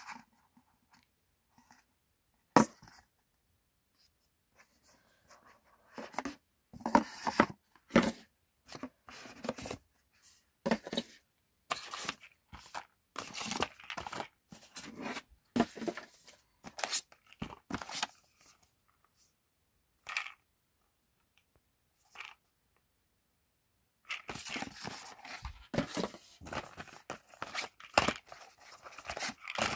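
Paperboard gift boxes and small product cartons being handled and unpacked: irregular scraping, rustling and tapping of cardboard, in scattered bursts with quiet gaps. There is a sharp knock about two and a half seconds in, and a denser stretch of rustling near the end.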